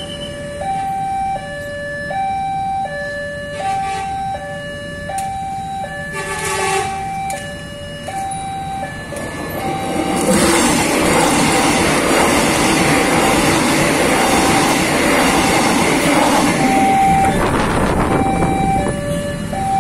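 Level-crossing warning alarm sounding an electronic two-tone chime, alternating high and low about once every second and a half throughout. A short horn sounds about six seconds in. About ten seconds in, an airport rail link electric train runs over the crossing, its wheel and motor noise the loudest sound for about eight seconds.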